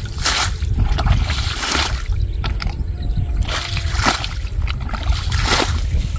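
Muddy pond water being scooped up in a plastic bucket and flung out, four splashing throws about a second and a half apart, over a steady low rumble.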